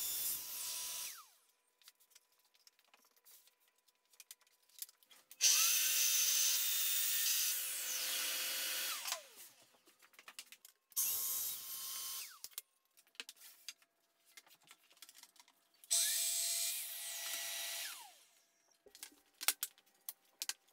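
Festool TS55 FEQ track saw crosscutting plywood on its guide rail: a run that ends about a second in, then three more short cuts, the first and longest lasting about four seconds, each ending with the blade spinning down. Small clicks and knocks from handling the parts and the rail come between the cuts.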